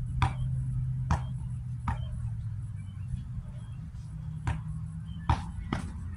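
Basketball bouncing on an outdoor hard court: about six sharp thuds at uneven spacing, three in the first two seconds and three quick dribbles later on, over a steady low rumble.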